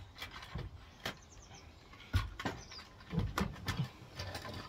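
Irregular taps, clicks and knocks of small objects being picked up and set down on wooden decking. The strongest knock comes about two seconds in, with a quick cluster a little over a second later.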